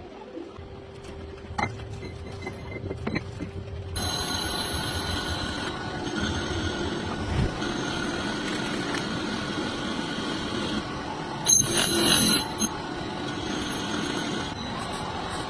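Metal lathe at work, running with a steady noisy hiss and several high ringing tones, with a few clicks at first. About four seconds in it gets clearly louder, and there is a brief loud burst a little after eleven seconds.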